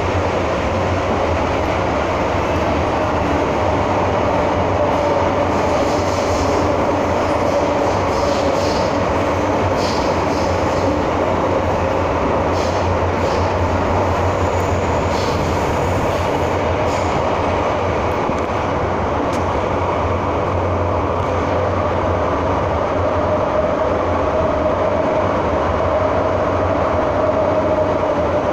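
MTR M-Train electric multiple unit running through a tunnel, heard from inside the carriage: a steady loud rumble and rush of wheels and running gear. A faint whine drifts slightly up and down in pitch, and a few light clicks come in the middle.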